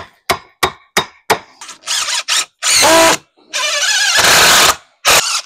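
Cordless drill driving screws into a wooden 2x4 brace in four bursts of spinning, one winding down in pitch as the trigger is released. Before the drill starts there are about five sharp knocks on the wood.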